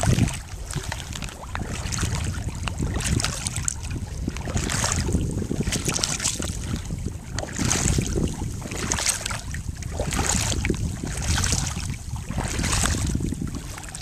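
Sandalled feet wading through shallow water, with a splash at each stride about every second and a half. Wind rumbles on the microphone throughout.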